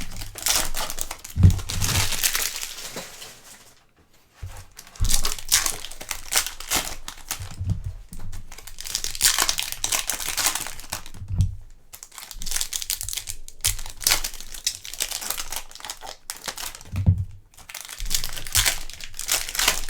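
Foil wrappers of Topps Chrome trading-card packs being torn open and crinkled by hand. The crinkling comes in repeated bursts of a few seconds with short pauses, and a dull thump now and then.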